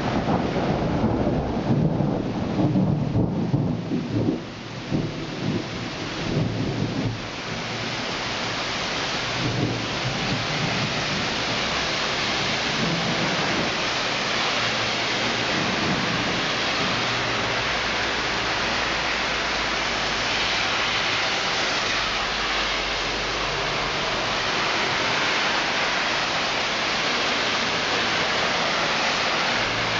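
Thunder rumbling for the first several seconds and dying away about seven seconds in, over heavy rain that then goes on as a steady, even hiss.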